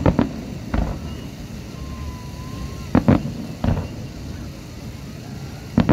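Aerial fireworks shells bursting in sharp bangs, about seven in all. They come in clusters near the start, about three seconds in and near the end, over a steady outdoor background.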